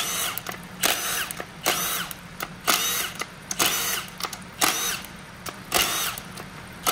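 Handheld power tool spinning out the front cover bolts of an 8L90 automatic transmission. It runs in short trigger pulls, about eight in a row, roughly one a second, each a brief whine that rises and falls in pitch.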